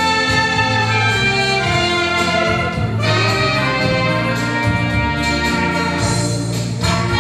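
Tyrolean band music led by brass, with sustained melody notes over a bass line that changes about once a second.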